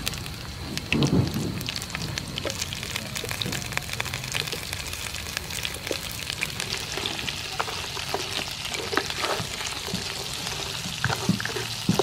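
Whole giant river prawns frying in hot soybean oil with chopped garlic in a frying pan: a steady crackling sizzle that grows fuller and hissier in the second half as more prawns go in. There is a low knock about a second in.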